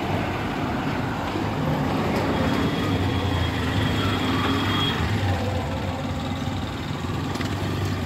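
Road traffic on a busy street, a steady rumble with a vehicle engine humming close by, loudest around the middle.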